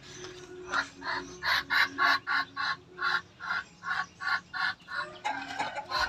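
Chicken squawking repeatedly as it is being caught, a fast even series of short calls about three a second, starting about a second in.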